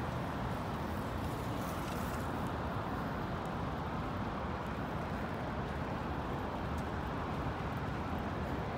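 Steady rainy city ambience: a continuous wash of traffic noise mixed with rain, with faint scattered ticks.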